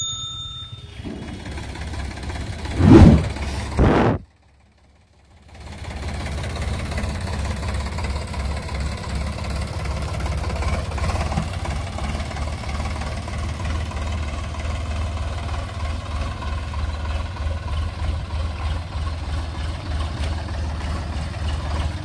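Sonalika DI 47 RX tractor's diesel engine running steadily as the tractor drives off. About three and four seconds in there are two loud surges, then the sound cuts to near silence for about a second before the engine resumes.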